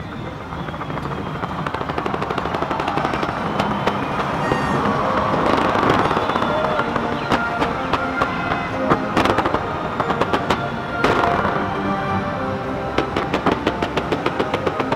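Large fireworks display: rapid crackling and bangs that grow denser through the second half, with music playing underneath.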